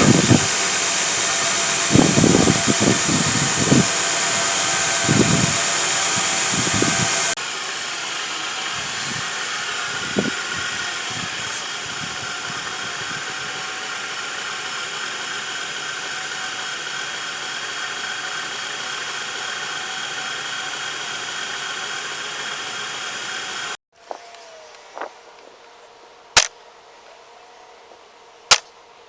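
A loud, steady hissing roar of shop equipment, with a few low thumps in the first seconds. It drops in level about seven seconds in and cuts off abruptly near the end. A couple of sharp knocks follow in the quiet.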